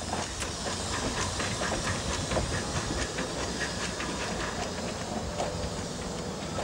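Steam locomotive B25 03, a 1902 Esslingen rack-and-adhesion tank engine, moving off under steam: a steady hiss of steam with a run of light knocks and clatter from its running gear.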